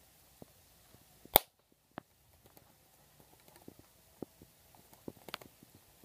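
Rubber balloon on a bird trap bursting with one loud, sharp pop about a second and a half in, followed by scattered light ticks and taps.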